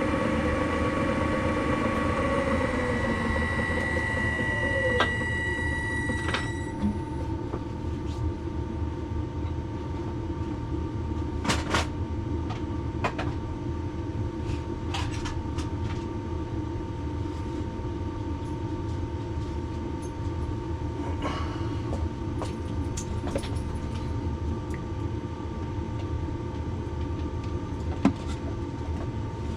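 Workshop machine motor running: several whining tones in the first few seconds fall away and stop, then a steady hum continues with scattered light clicks.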